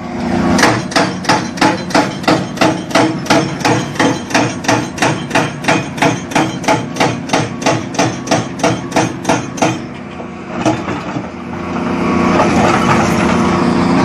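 Volvo tracked excavator on broken rock: a steady run of heavy metallic clanks, about three strikes a second, which stops about ten seconds in. The machine's diesel engine then runs on with a steady drone.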